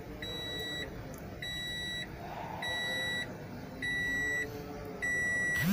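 Car warning beeper sounding a steady series of identical high beeps, each about half a second long with equal gaps, five in a row.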